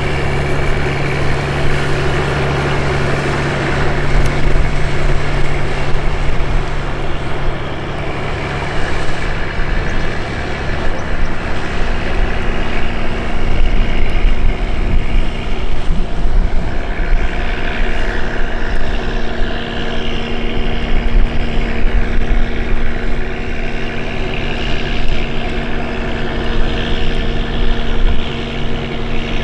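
Diesel engine of a small fishing boat running steadily as it passes close by and heads away, a continuous drone whose hum shifts to a higher pitch partway through. Wind rumbles unevenly on the microphone underneath.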